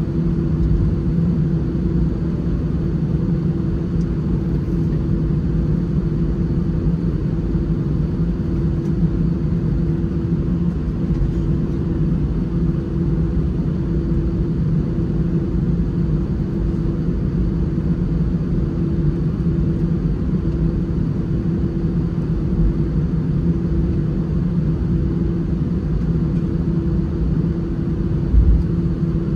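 Cabin noise inside an Airbus A319-111 with its CFM56 engines running at a steady low power: a constant low rumble with a steady hum over it. One short low bump near the end.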